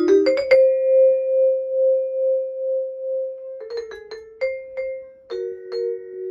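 Solo jazz vibraphone played with yarn mallets: a quick flurry of notes, then one long held note that pulses in loudness for about three seconds, then a few more struck notes and two-note chords near the end.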